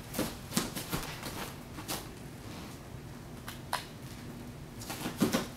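Bare feet and hands thudding on a folding gymnastics mat as a cartwheel is done: a few soft, separate thuds spread through the seconds, two more close together near the end.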